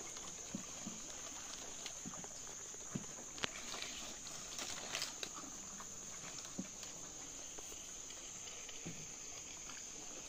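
Steady high-pitched insect drone of the swamp forest, with scattered light knocks and small splashes from wooden paddles working against the canoe and the water, a few a little louder around the middle.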